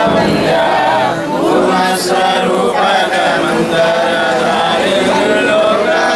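A group of voices chanting devotional prayers together in a steady, continuous melodic recitation.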